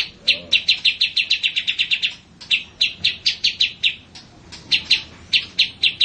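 A small songbird giving runs of short, sharp chirps, several a second, with a brief thinning about four seconds in.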